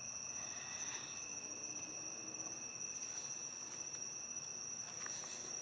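Faint, steady, high-pitched chirring of night insects, one unbroken tone throughout.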